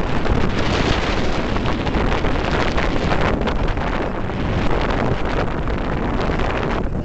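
Strong gusty wind buffeting the camera microphone, a loud continuous rushing and rumbling noise that covers everything else.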